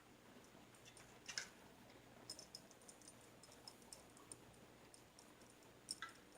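Faint, irregular clicking from an Australian Shepherd chewing corn on the cob, with a slightly louder click about a second in and another near the end.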